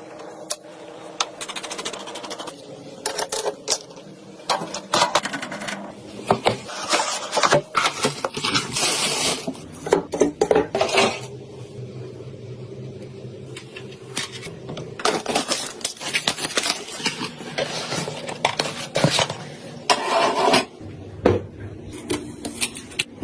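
Hard computer parts being handled during PC assembly: irregular metallic clinks, clicks and scrapes, with a faint steady hum underneath.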